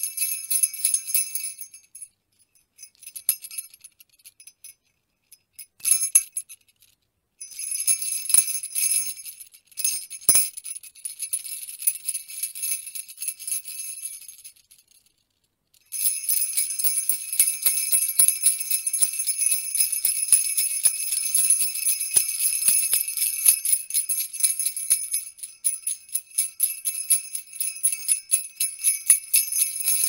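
Sparkle sound effect: a high, glittering shimmer of tinkling bell-like chimes. In the first half it comes in short stretches broken by silences; from about halfway it runs on unbroken.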